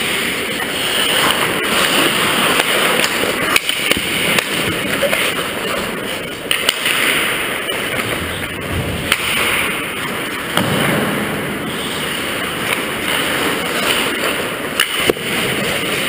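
Ice hockey play close to the goal: skate blades scraping and carving the ice, with scattered sharp clacks of sticks and puck.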